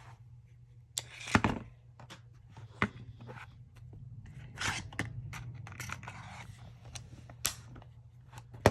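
Handling noise from pistols and their magazines: scattered clicks, scrapes and light rattles, with sharp clicks about a second and a half in and near the end, over a steady low hum.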